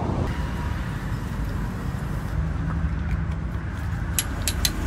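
Steady low outdoor rumble, with a few light metallic clicks near the end as a needle distribution tool stirs ground coffee in a metal dosing cup.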